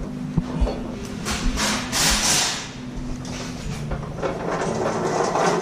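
Background music with a steady, stepping bass line, over a few sharp knocks and clunks from assembly work and a brief burst of hiss about two seconds in.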